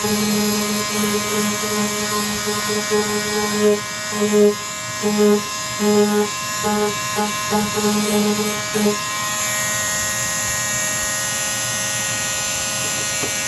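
Small electric power sander running steadily on the motorcycle's bodywork panel, a whining buzz over hiss. A lower hum comes and goes in short bursts through the first nine seconds, then the sound stays even.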